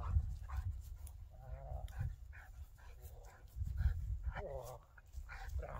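Belgian Malinois whining with two short wavering cries, about a second and a half in and again near four and a half seconds, between panting breaths during rough play.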